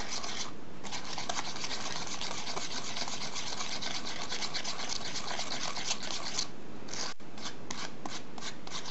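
Small plastic spoon stirring and scraping quickly around a plastic tray well, mixing candy-kit powder and water into a smooth gel: a steady run of fast, scratchy strokes with a couple of brief pauses.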